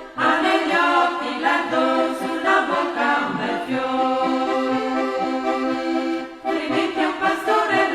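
Music with long held notes in chords, changing every half-second or so, with a fuller, louder passage from about six and a half seconds in.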